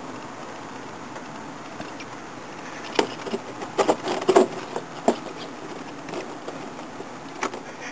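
A hand knocking and rubbing on a car's air cleaner lid: a cluster of sharp knocks and scrapes about three to four and a half seconds in, one more a little after five seconds and another near the end, over a steady hiss.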